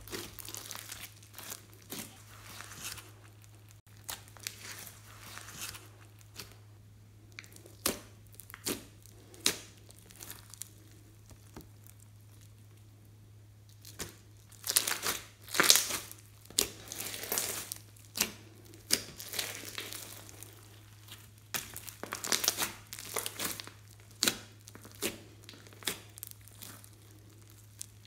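Red slime mixed with foam beads being squeezed, folded and stretched by hand: irregular sticky crackles, pops and tearing sounds, in dense clusters about halfway through and again about three-quarters of the way through.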